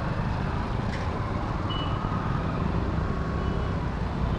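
Road traffic in a jam: engines of surrounding motorcycles and scooters running as a steady low rumble, with two short, faint high beeps.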